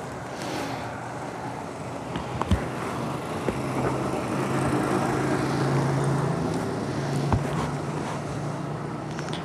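A vehicle engine running steadily over street noise, its hum growing louder in the middle, with a few sharp clicks.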